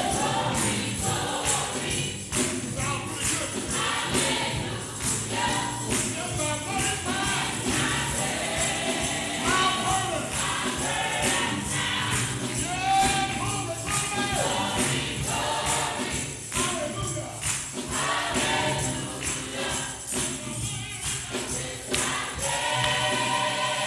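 Gospel choir and congregation singing, with a tambourine shaking and striking throughout.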